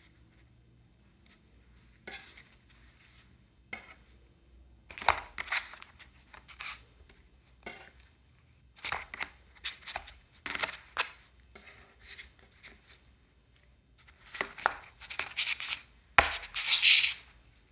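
Metal spatulas scraping and tapping on the steel cold plate of an ice cream roll machine in short, uneven bursts, as rolled ice cream is lifted off the plate. The longest and loudest scrape comes about a second before the end.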